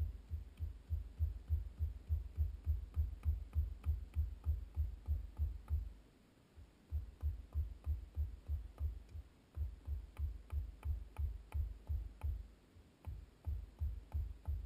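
Background electronic music: a fast throbbing bass pulse, about five beats a second, with light ticking hi-hats. The beat drops out for about a second near the middle.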